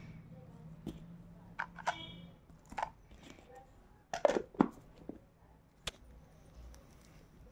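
Light plastic knocks and clicks from a Kent egg boiler's clear dome lid and egg tray being handled and fitted onto the base. The loudest few knocks come together just past the middle as the lid goes on, followed by a single sharp click.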